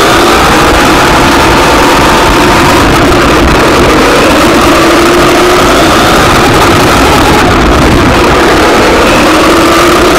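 1:10 scale RC buggy's motor running loud and close to the onboard camera. Its pitch rises and falls with the throttle as it drives, over a steady rush of noise.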